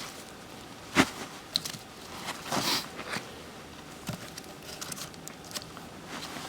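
Firewood sticks being handled and laid in place: a sharp wooden knock about a second in, then scattered small clicks and crunching rustles.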